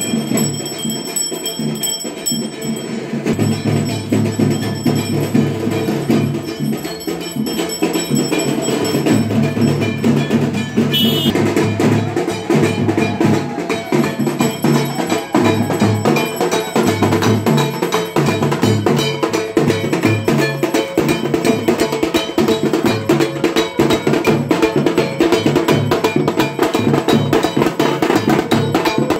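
Puja percussion: drumming with clanging metal strikes in a fast, continuous beat.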